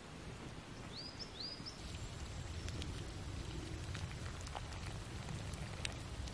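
Campfire of sticks crackling with scattered sharp pops over a steady outdoor hiss. A bird gives two short rising chirps about a second in.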